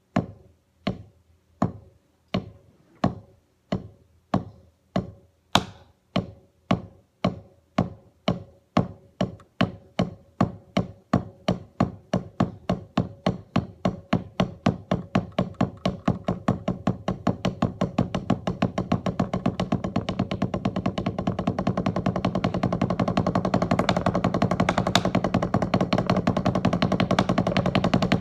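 Drumsticks striking a drum in single strokes, about two a second at first and speeding up steadily until, about halfway through, they blur into a fast continuous roll held to the end: a slow-to-fast roll exercise. One stroke about five seconds in is louder than the rest.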